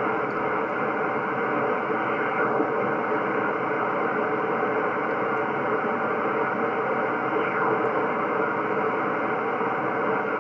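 Receiver static from an HF transceiver's speaker as the VFO is tuned up the 10-metre band in upper sideband: a steady hiss cut off above about 3 kHz, with no station coming through. The operator takes this for 10 metres having closed for the day.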